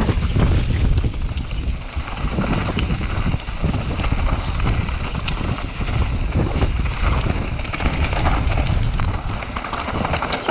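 Wind buffeting the microphone, a loud rumbling noise that rises and falls with the gusts.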